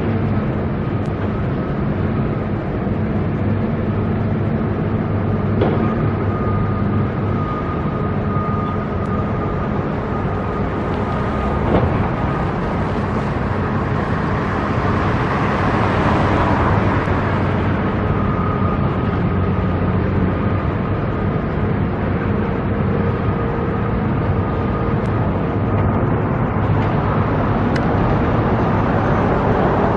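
Steady din of engines with a low hum, a vehicle swelling past about halfway through, and another one speeding up near the end.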